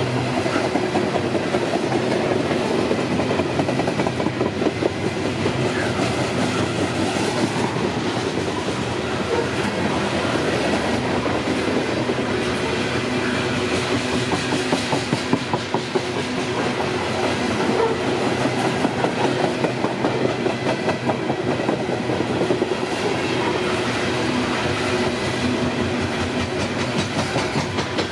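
Loaded coal hopper cars rolling past at speed, their steel wheels clacking over the rail joints in a steady, unbroken rumble.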